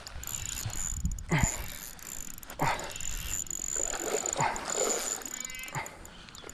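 Spinning reel being cranked, its mechanism clicking, while a hooked black bass splashes at the surface close to the bank.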